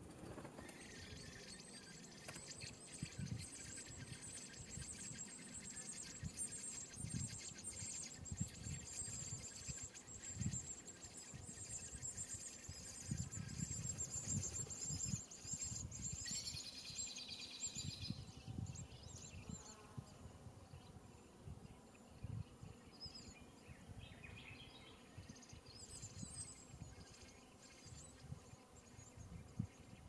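Common blackbird nestlings giving thin, high-pitched begging calls. The calling is a fast chittering through the first half, grows densest just past the middle as the chicks gape, then thins to scattered calls. Soft low thumps sound throughout.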